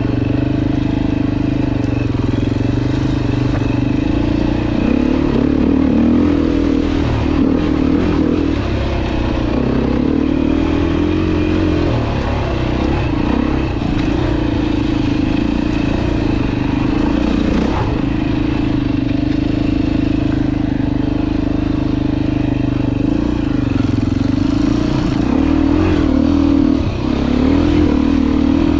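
Dirt bike engine running while riding. Its pitch rises and falls over and over as the throttle is opened and closed.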